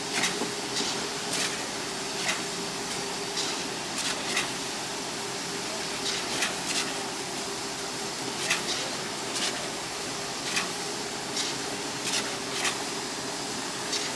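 Concrete pump running while pumping concrete: a steady engine hum with a sharp knock roughly once a second.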